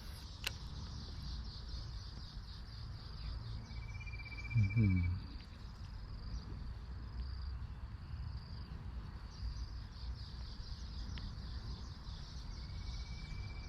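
Outdoor insect chorus, a steady high pulsing buzz, over a low background rumble. A short high trill comes twice. About four and a half seconds in there is a brief, louder low sound that rises in pitch.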